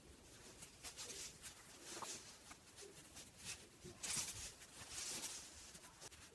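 Faint, irregular rustling of yarn and a crochet hook as single crochet stitches are worked, with a few louder brushes about four and five seconds in.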